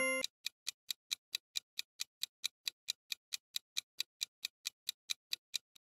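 Quiz countdown-timer sound effect: a clock-like ticking at an even pace of about four to five ticks a second.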